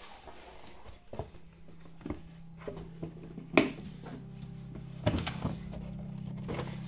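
About half a dozen scattered knocks and clatters of objects being handled, the loudest about three and a half seconds in, over a steady low hum that sets in about a second in.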